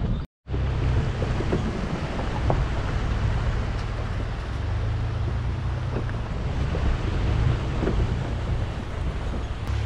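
Chevrolet Colorado ZR2 pickup driving slowly up a rocky dirt trail: a low, steady engine drone with scattered clicks and crunches of stones under the tyres. The sound cuts out for a moment just after the start.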